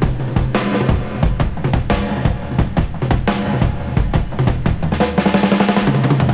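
Background rock music led by a drum kit, with kick and snare on a steady beat under bass notes, and a quickening drum fill near the end.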